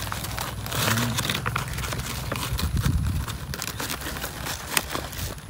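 Rustling and crinkling of a sack and leaf litter being handled, with many scattered sharp clicks and crackles.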